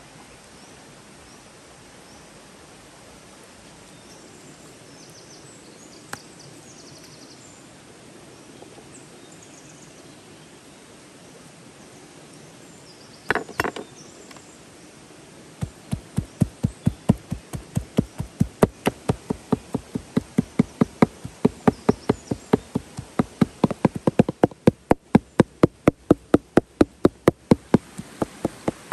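Heavy cleaver chopping raw chicken on a wooden board, mincing it with fast, even strokes of about three to four a second. A brief cluster of strikes comes first, and the steady chopping starts a little past halfway.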